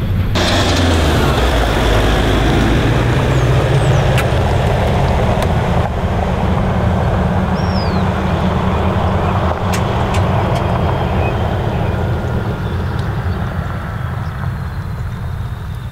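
Toyota Hilux ute driving along a gravel road: steady engine drone with the rush of tyres on loose gravel, slowly fading as it draws away.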